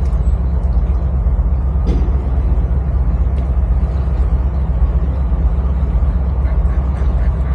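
Loud, steady low rumble of city traffic noise, with a few faint clicks over it.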